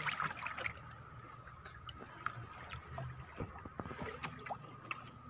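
Water sloshing and dripping as hands work a fishing net in shallow water, with a splash right at the start and scattered small clicks and ticks after it. A faint steady high-pitched hum runs underneath.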